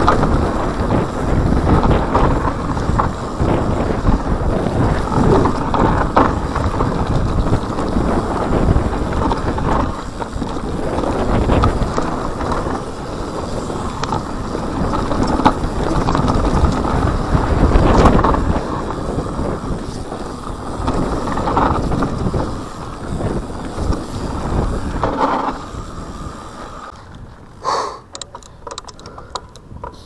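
Mountain bike riding fast down a rocky dirt trail: tyres crunching over gravel and stones, with frequent knocks and rattles from the bike and steady wind noise on the microphone. It quietens a few seconds before the end, with a short run of sharp clicks.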